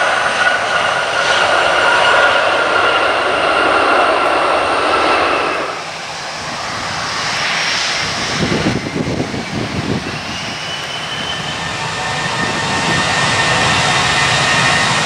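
Airliner jet engines running as aircraft roll along the runway, in cut-together clips. First a narrowbody Airbus with a whine of steady engine tones over a roar. About six seconds in the sound changes abruptly to a Boeing 787 with a fluttering low rumble. Near the end an Airbus A320-232 on its takeoff roll gives a steady high whine.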